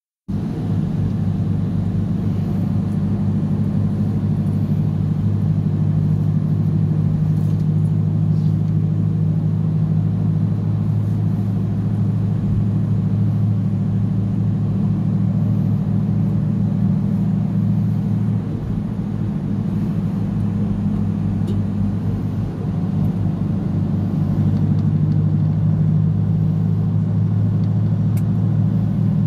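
Steady low road and engine hum heard from inside a vehicle moving at speed.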